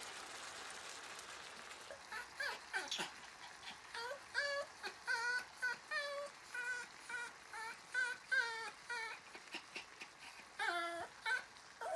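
A maltipoo whining in many short, high whimpers that rise and fall, several a second, starting about two seconds in.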